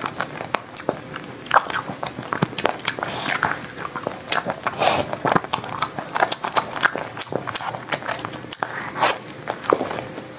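Close-miked biting and chewing of a chocolate-coated ice cream bar: the hard chocolate shell cracking and crunching, with wet mouth sounds, in a steady run of small crisp clicks.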